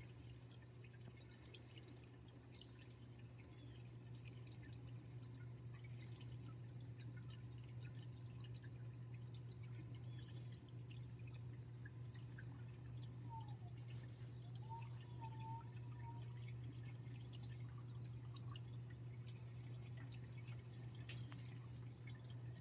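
Small stone waterfall trickling into a biotope pond, a steady splashing with scattered drips, over a constant low hum. A few faint short chirps come in around the middle.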